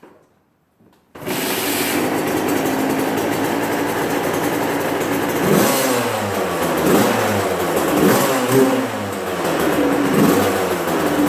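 Suzuki RM85 85cc two-stroke single-cylinder dirt bike engine, coming in abruptly about a second in and running steadily, then revved repeatedly from about halfway, its pitch rising and falling roughly once a second.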